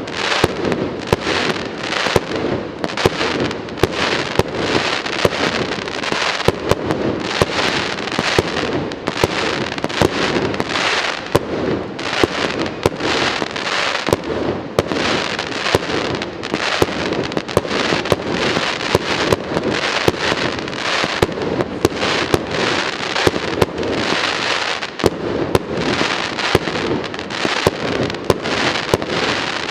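Fireworks display: aerial shells bursting in a fast, unbroken run of sharp bangs and pops, several a second, with no let-up.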